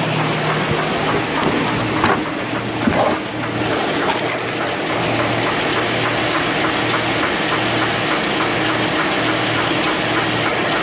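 Factory machinery running steadily, with a fast, even repeating clatter over a pulsing low hum. A few louder knocks come about two and three seconds in.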